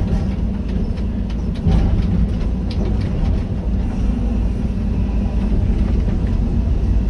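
Excavator's diesel engine running steadily under load, with a few sharp knocks in the first three seconds.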